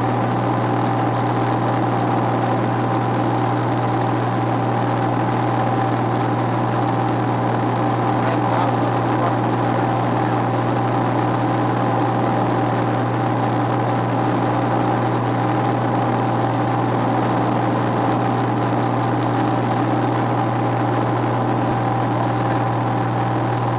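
Single-engine propeller aircraft's engine and propeller running at a steady cruise setting, heard from inside the cockpit as an even, unchanging drone.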